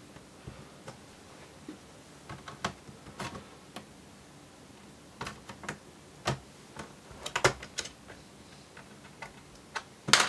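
Plastic snap clips of a Dell Inspiron 15 3501 laptop's bottom cover releasing as a plastic pry tool is worked along the edge: scattered sharp clicks and small plastic knocks at irregular intervals, the loudest just before the end.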